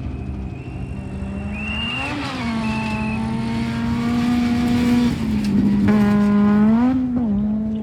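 Rally car engine running hard at high revs, its pitch bumping up and back down about two seconds in and again near the end, and dipping then climbing again in the middle as the throttle is worked. A thin high whine sits over the engine in the first few seconds.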